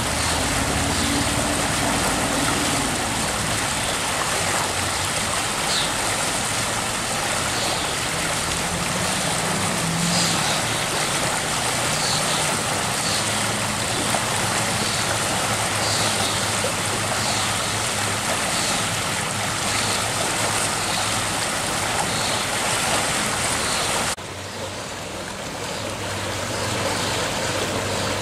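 Swollen, fast floodwater rushing through a stone-walled creek channel in a steady, loud rush. Near the end it drops to a quieter rush of floodwater flowing through a concrete flood-control channel.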